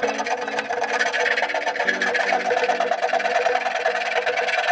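Background music with a bass line moving in short, steady notes.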